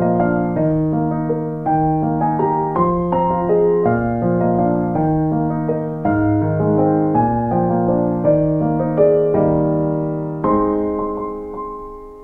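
Background piano music: chords and single notes struck about once a second and left to ring, dying away near the end.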